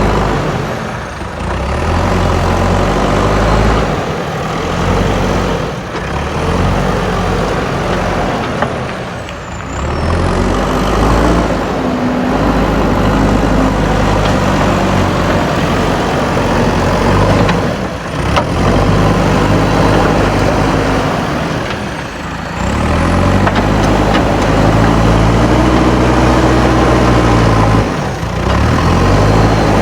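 Diesel engine of a JCB backhoe loader working, its revs rising and falling over and over: surges lasting several seconds broken by short dips.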